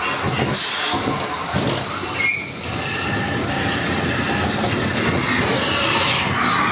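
Slinky Dog Dash steel roller coaster train rolling along its track, its wheels rumbling and clattering, with a brief squeal about two seconds in and short hisses near the start and end.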